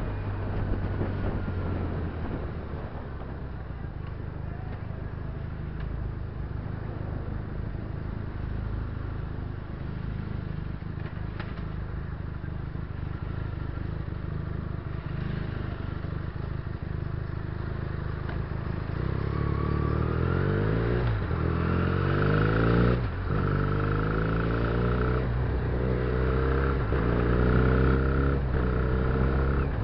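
Benelli TNT300 (BN302) 300cc parallel-twin engine, heard from the bike. It runs low and steady in slow traffic with road noise. From about two-thirds of the way in it accelerates through the gears, its pitch rising and dropping back with each upshift.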